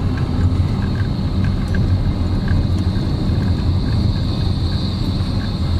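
A vehicle's engine pulling steadily up a steep mountain road, heard from inside the cabin as a low drone with road and wind hiss; it is working hard on the climb.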